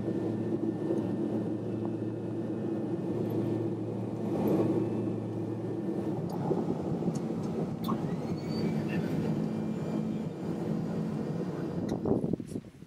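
Airplane engines droning steadily, heard from inside the passenger cabin. About six seconds in, the lowest note of the drone drops away.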